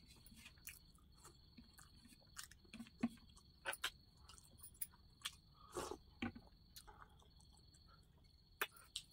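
Close-up sounds of eating by hand: chewing and mouth noises with scattered short sharp clicks. A faint steady high tone runs behind.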